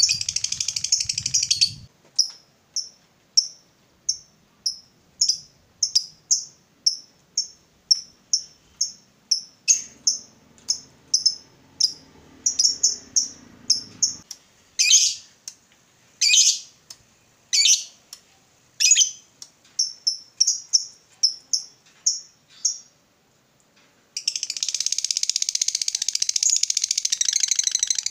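Fischer's lovebird calling: a dense, rapid high chatter (the long trill that lovebird keepers call ngekek) for the first two seconds, then a long series of short sharp chirps about two a second, with a few louder, harsher calls midway. The rapid chatter starts again about 24 seconds in.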